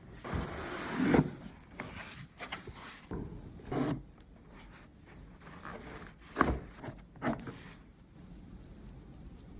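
Handling noises: irregular rubbing with a few knocks, the loudest about a second in, near four seconds, and twice around six and a half to seven seconds, then quieter.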